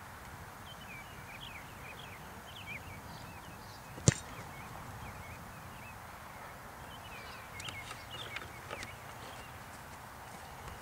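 A single sharp thump about four seconds in: a kicker's foot striking a football off a kicking tee on a field goal attempt.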